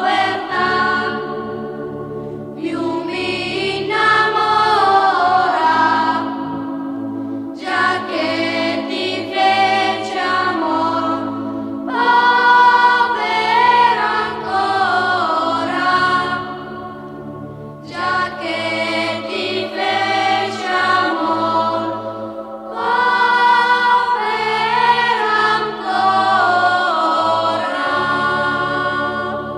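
Choral music: a choir singing slow phrases of about five seconds each, with short breaks, over a steady low held note. It starts fading out near the end.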